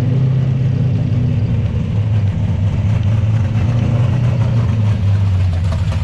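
Engine of a custom street truck idling steadily, its low note dipping slightly lower about two seconds in.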